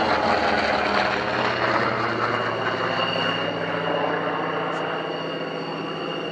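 An F-16 fighter's jet engine running at taxi power: a steady high whine over a broad rushing noise that eases a little in level over the few seconds.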